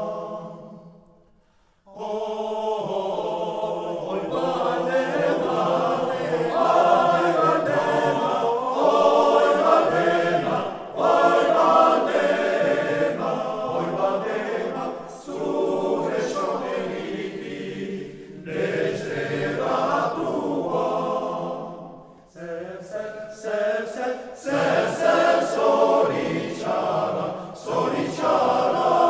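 Male-voice choir singing a cappella. A phrase dies away in the first second or so, the choir comes back in about two seconds in, and it sings on in phrases with short breaths between them.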